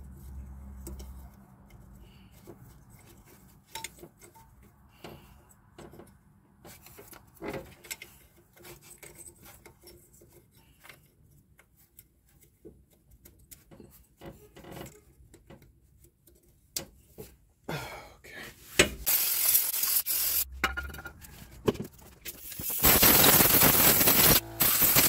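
Light metallic clinks and scrapes of hand work on the engine's oil filter adapter housing. Near the end come two loud stretches of hissing noise, the second about two seconds long.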